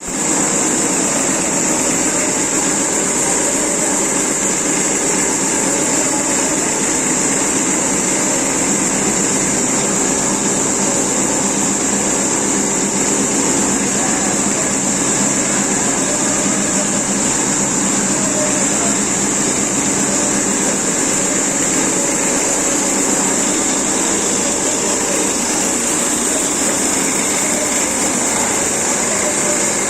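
CNC cutting machine running steadily: a continuous high-pitched whine over a steady mechanical hum.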